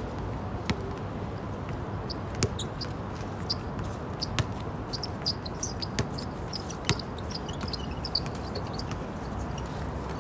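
Basketballs bouncing on a hard court, about seven sharp, irregularly spaced impacts over a steady background hubbub, with short high chirps scattered through the middle.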